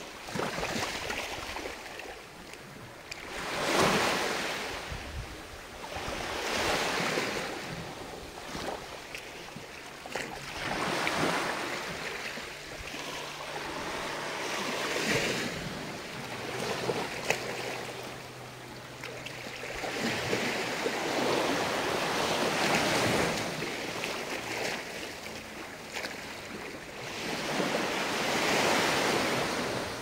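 Small ocean waves breaking and washing up a sandy beach, each wash swelling and fading every three to four seconds.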